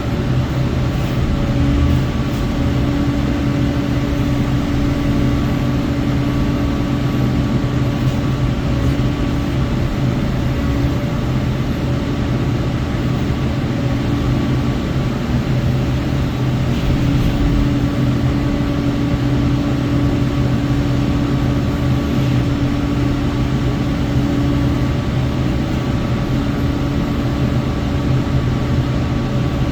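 Sany SY80U compact excavator running steadily under power, driving a Loftness Battle Ax mulcher head: a constant heavy engine and hydraulic hum with a higher steady tone that fades out briefly around the middle and comes back.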